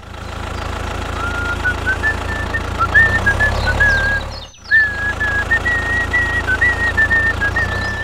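Tractor engine sound running steadily, with a whistled tune over it from about a second in. Both cut out for a moment about halfway through.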